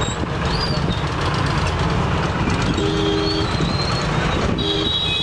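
Diesel train rumbling steadily, with two short two-note horn honks, one about three seconds in and one near the end.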